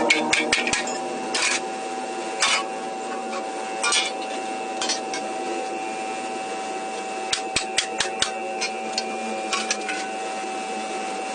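Hammer blows on the sheet-metal body panels of a pickup's cargo bed, beating the crash-bent metal back into shape: a quick run of strikes at the start, then single knocks and a short flurry about two-thirds of the way in.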